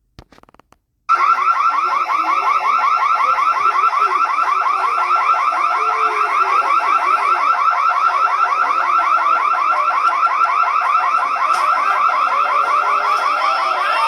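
Electronic alarm sounding continuously, a loud, rapidly pulsing high tone that starts abruptly about a second in.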